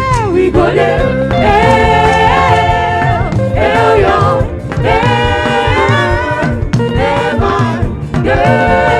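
Live gospel praise music: lead singers singing held, melodic phrases over a full band with a steady beat.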